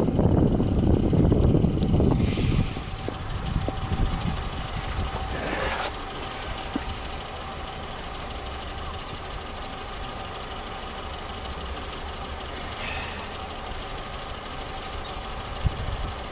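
A motor running steadily with a faint constant whine, under a louder low rumble that drops away after the first two or three seconds.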